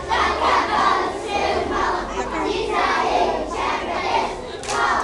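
A group of young children's voices singing and chanting together at once, with a short sharp click near the end.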